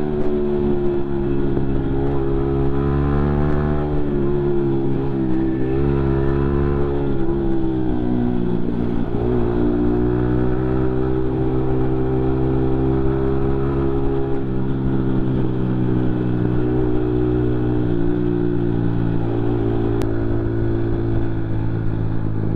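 Yamaha MT-15's 155 cc single-cylinder engine running under way, a steady note whose pitch dips briefly and rises again a few times, as the throttle is eased and reopened.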